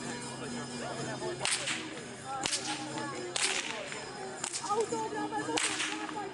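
Hungarian karikás whip cracking five times, roughly one sharp crack a second.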